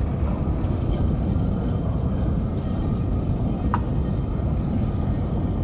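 Trams rolling slowly across a depot yard: a Tatra T4D approaches while another tram pulls away, giving a steady low rumble. A short high squeal comes about two-thirds of the way in.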